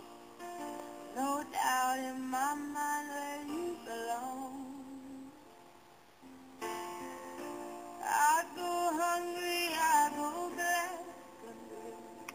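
A pop song with a woman singing over instrumental backing, poor in quality because it was recorded on a phone playing from a laptop. The singing drops out for a couple of seconds about halfway through, then comes back.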